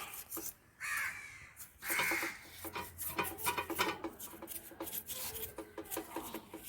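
Crows cawing twice, about a second and two seconds in, over the quick rasping strokes of a brush scrubbing a motorcycle engine casing clean with kerosene.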